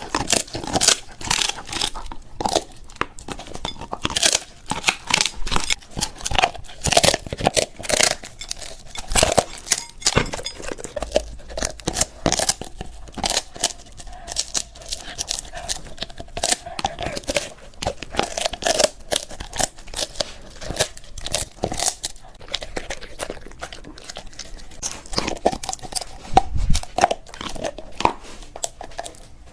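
A golden retriever crunching and tearing at an ostrich wing, with many irregular sharp cracks as it bites and chews.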